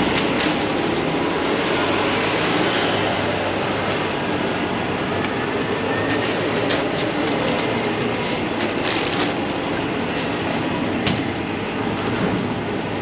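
Steady, loud machinery noise: a low hum under a rumble, with scattered clicks and clanks.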